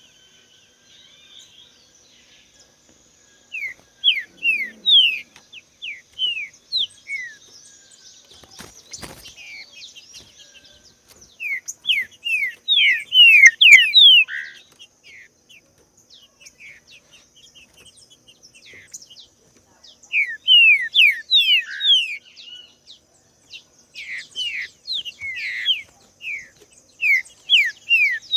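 Green-winged saltator (trinca-ferro) singing: phrases of quick, downward-slurred whistled notes, coming in several bursts separated by pauses of a few seconds.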